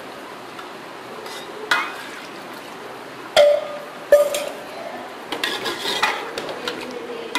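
A metal spoon clinks once against an aluminium cooking pot, then strikes it twice sharply less than a second apart, each strike ringing briefly, over a steady hiss. In the last couple of seconds the spoon stirs and scrapes through the meat and broth.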